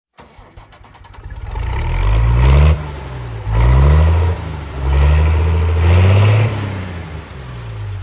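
A large engine revving in three surges, its pitch climbing each time and dropping away sharply, then settling back to a lower, steadier run.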